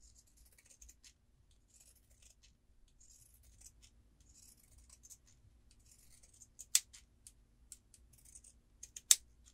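Pinking shears cutting through cotton seam allowance in a run of short snips, about one a second, trimming the curves to remove bulk. Two sharp clicks come near the end, the second the loudest sound.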